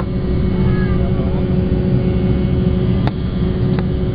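Cabin noise of an Embraer E190 climbing after takeoff: its GE CF34 turbofans and the airflow give a steady low rumble with a constant hum. Two faint clicks sound about three seconds in.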